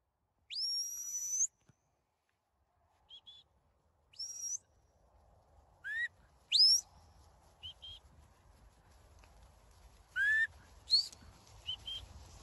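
Shepherd's whistle commands to a working sheepdog: a series of sharp, high whistled signals, some sweeping steeply upward and some short double pips, each separated by a second or more.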